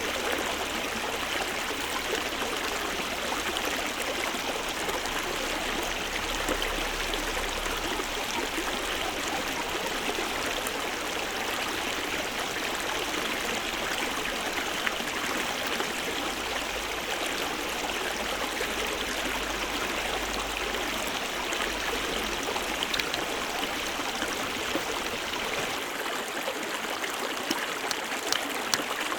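A stream running steadily, with a few sharp clicks near the end.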